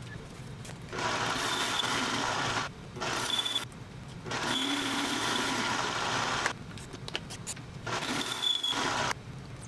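Mini metal lathe facing a mild steel disc: a tool cutting the steel over the running motor. The cutting comes in four stretches with short quieter breaks between them.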